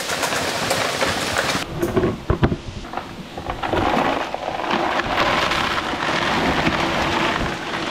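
Steady hiss of heavy rain, with a few knocks about two seconds in.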